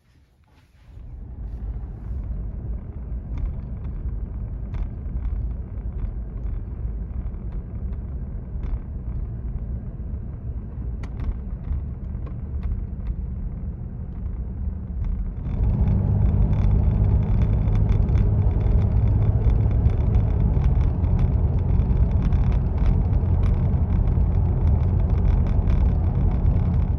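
Cab interior of a 2017 Toyota Tacoma pickup on the move: a steady low rumble of road and drivetrain noise that steps up louder about 15 seconds in, with scattered faint clicks over it.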